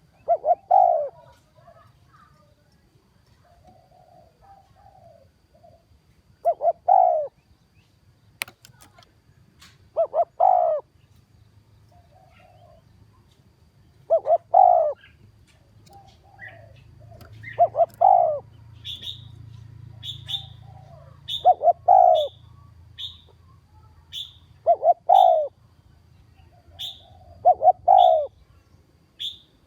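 Spotted dove cooing: loud phrases repeated every three to four seconds, with fainter cooing in between. From about two-thirds of the way in, a short high chirp from another bird repeats about once a second.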